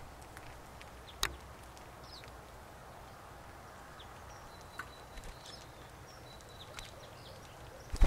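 Crossbills cracking sunflower seeds at tube feeders: scattered sharp clicks, one louder crack about a second in and a few more near the middle, with faint high bird chirps.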